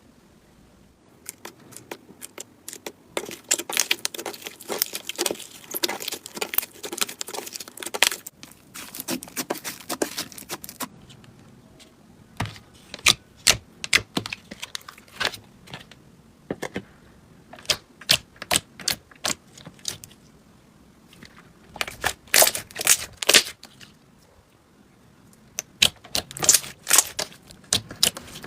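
Slime being squeezed and pressed by hand, giving quick clusters of sharp clicks and pops, with short lulls between handfuls.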